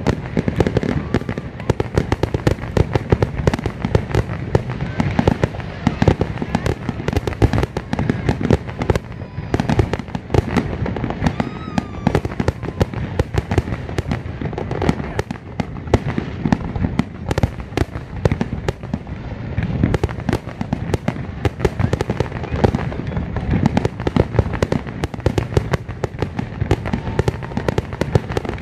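Fireworks display going off in a rapid, unbroken barrage of deep bangs, several a second, the closing stretch of the show.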